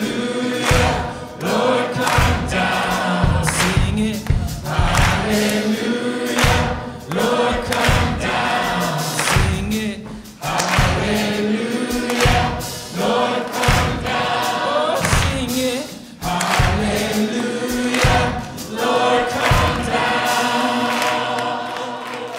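Live gospel song: a lead singer and a choir singing together over a band with a steady beat.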